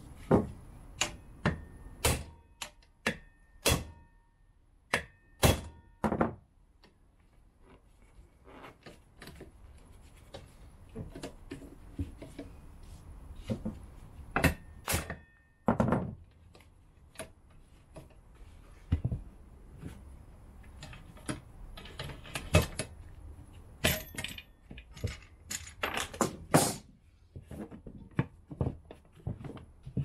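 Irregular knocks, clicks and short metallic clinks of hand work on a motorcycle rear wheel during a tyre change: the tyre, a bar clamp and tools knocking against the alloy rim. The sounds come thick at first, thin out for several seconds, then pick up again.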